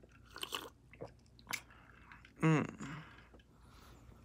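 Mouth sounds of sipping and chewing from a glass of Shirley Temple: scattered small wet clicks, then about halfway through a short voiced sound that dips and rises in pitch, the loudest moment.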